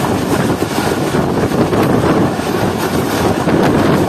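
Passenger train running at about 80 km/h, heard from an open coach window: a steady rush of wheels on the rails mixed with wind buffeting the microphone.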